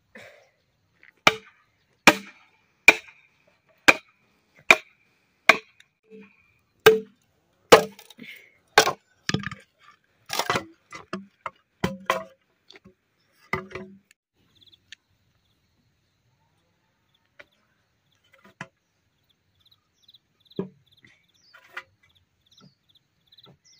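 Machete chopping into a bamboo tube: about a dozen sharp, evenly spaced chops, roughly one a second. From about ten seconds in come more irregular cracks and knocks as the bamboo splits. After that there are only a few faint knocks.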